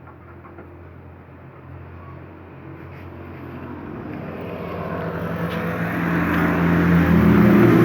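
A motor vehicle engine running at a steady pitch, growing steadily louder and loudest near the end.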